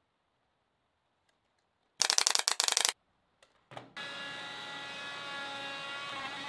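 A pneumatic brad nailer fires a quick run of sharp, loud clicks about two seconds in, driving brads into stacked plywood rings. From about four seconds in, a benchtop router table runs with a steady whine.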